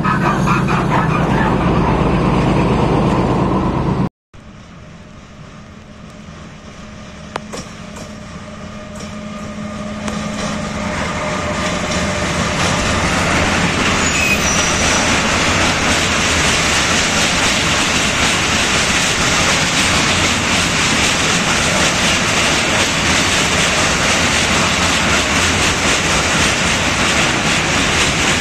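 A class 418 diesel locomotive's engine running as it pulls past close by, with steady low engine tones; it cuts off suddenly about four seconds in. Then a long freight train of hopper wagons rolls past, the wheel and rail noise building over several seconds and then running steady.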